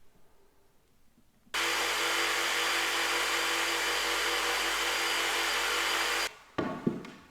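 An electric power tool's motor running at a steady speed for about five seconds, starting and cutting off abruptly, followed by a few short knocks.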